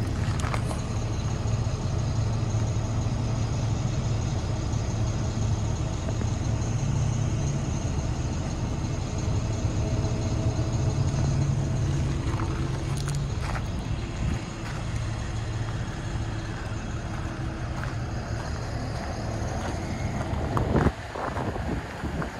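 Chevrolet cube truck's engine idling steadily, a low even hum, a little quieter from about two-thirds of the way in. One sharp knock near the end.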